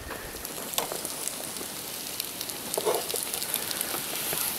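Food frying in hot oil in a pan: a steady sizzle with faint scattered crackles.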